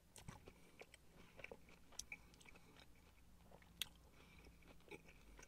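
Faint chewing of a mouthful of steak sandwich, a scatter of soft wet mouth clicks with one sharper click a little before four seconds in.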